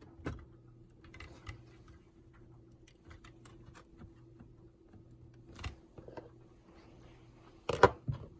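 Light scattered clicks and taps of small parts and a screwdriver being handled while a POS terminal is taken apart, with a louder clatter of parts near the end. A faint steady hum runs underneath.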